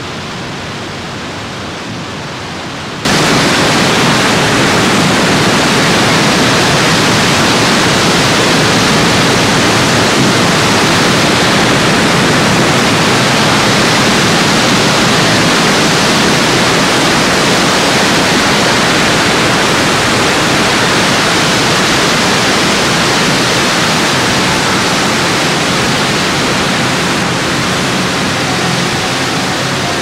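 Steady rushing wind with no gusts or other sounds. About three seconds in it steps up sharply in loudness and becomes brighter and hissier, then holds even.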